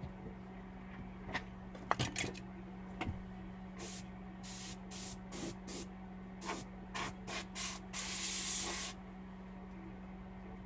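A few light clicks of parts being handled, then a can of compressed air sprayed in about nine short bursts of hiss and one longer blast of about a second near the end.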